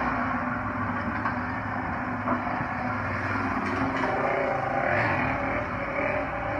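Vehicle engine and road noise heard from inside the cab, a steady rumble as it drives up a dirt ramp.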